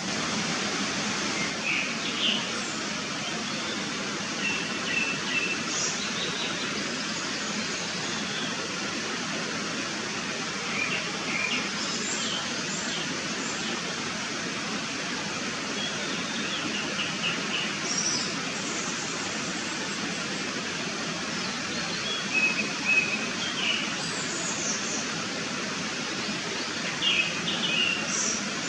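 Japanese thrush singing: short, varied whistled phrases every few seconds, over a steady background hiss.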